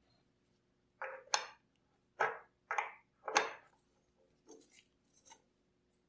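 Small aluminium moka pot parts set down one at a time on a wooden tabletop: five sharp clacks over the first three and a half seconds, then two fainter ones.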